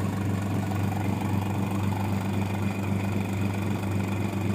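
Vacuum leak tester's pump running with a steady, even hum, drawing vacuum during a bubble leak test.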